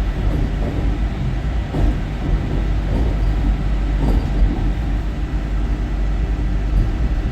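Vande Bharat Express electric multiple unit running along the track: a steady low rumble of wheels and running gear with faint irregular knocks.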